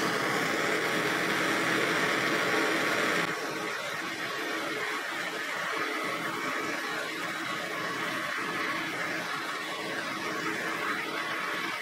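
Handheld gas torch flame hissing steadily as it heats the bench vise's jaw to drive moisture out of the metal; the hiss drops a little in level about three seconds in.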